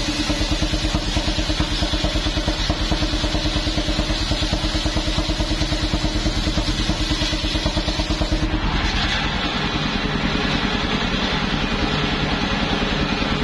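Engine of a homemade mobile circular sawmill running steadily with a fast, even chugging pulse and the big blade spinning. About two-thirds of the way through, the sound turns harsher and hissier as the log is fed against the blade.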